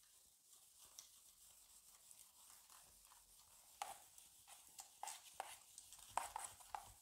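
Faint, quick strokes of a duster wiping a whiteboard, a run of short scrapes and taps in the second half; near silence before that.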